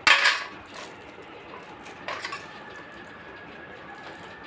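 A metal kitchen knife clattering onto a stainless steel plate, with a second, softer clink about two seconds in.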